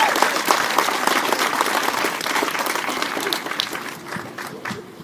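Audience applauding in a welcome, the clapping dying away near the end.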